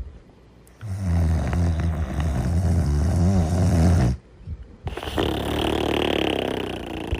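Cartoon character snoring: a long, low, rattling snore of about three seconds on the in-breath, then after a brief break a higher, breathier out-breath.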